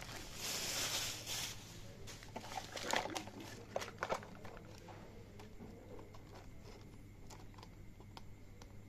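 Plastic packaging rustling as it is handled, then a run of small clicks and taps that thin out to faint occasional ticks about halfway through, over a low steady hum.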